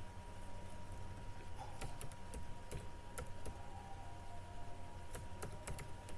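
Computer keyboard keys tapped one by one at an irregular pace while a word is typed, over a steady faint electrical hum.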